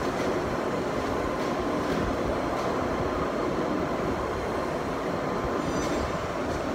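Steady mechanical running noise, a dense rumble with a faint steady whine and light clicks every second or so.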